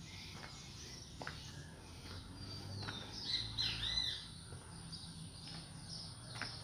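Birds calling outdoors: a short run of whistled, arching, gliding notes near the middle, over faint open-air background with a few light clicks.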